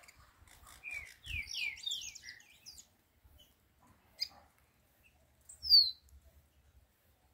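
Caged chiviro verde songbird singing: a quick run of short, high, downward-slurred notes about a second in, then a single loud high downslurred note near the end.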